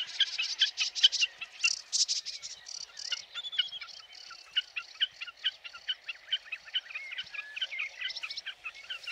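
Common snipe giving its rapid, repeated 'tiki-tiki' chippering call, about five sharp notes a second without a break, with other warbling birdsong mixed in.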